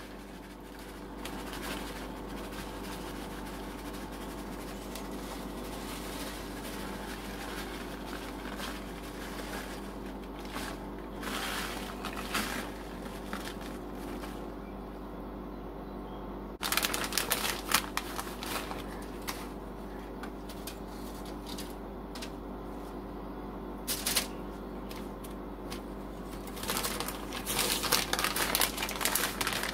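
Plastic bag of shredded mozzarella crinkling and rustling as the cheese is shaken out of it, in several short spells, busiest near the end, over a steady low hum.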